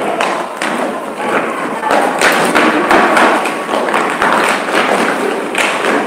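Footsteps of many performers walking and running on a wooden stage floor: a dense, irregular stream of thuds and taps, growing busier about two seconds in.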